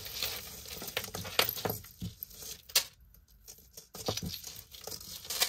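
Small metal jewelry chains and pieces being handled, clinking and rattling in irregular light clicks, with a few sharper taps.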